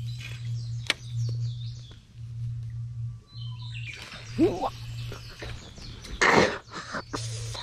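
Wild birds chirping and calling around a pond over a steady low hum. A sharp click comes just before one second in, and a short, loud rush of noise comes a little after six seconds.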